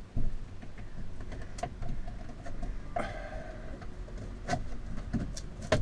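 A screen frame being slid and pushed under the lip of a VW Westfalia roof light surround: scattered scrapes and light knocks, with a sharp knock just after the start and another near the end.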